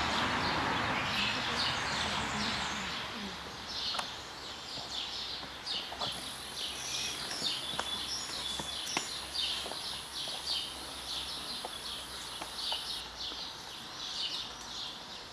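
Small birds chirping continuously in the trees, many short calls overlapping. A rushing noise fades out over the first few seconds, there are a few sharp clicks, and a thin high whine runs through the middle seconds.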